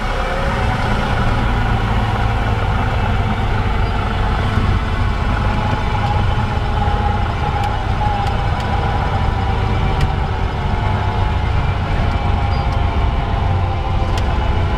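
Cessna 172's piston engine idling steadily with the propeller turning slowly, heard from inside the cockpit as the plane rolls out along the runway after landing. A few faint ticks sound over it.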